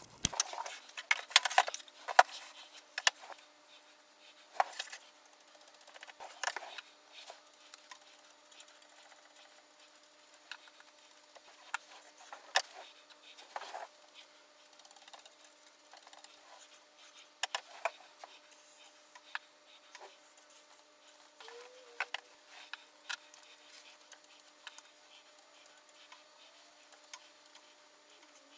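Scattered light taps, clicks and rubbing from hands handling and smoothing material on a wooden tool chest, busiest in the first few seconds, over a faint steady hum.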